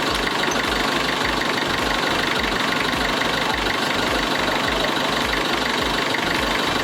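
Boat engine running steadily, with an uneven low throb under a constant rushing noise.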